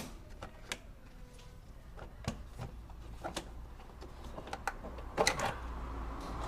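Scattered clicks and knocks of hands unclipping and lifting out a car's air intake in the engine bay, with a few louder knocks in the second half and a faint low hum underneath.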